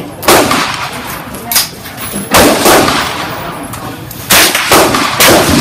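Rifle shots on a shooting range: four loud shots at irregular intervals, each with a short ringing tail, and a couple of fainter shots between them.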